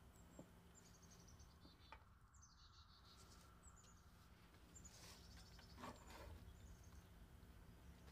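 Near silence: quiet room tone with faint high bird chirps in the background and a few soft taps about five to six seconds in.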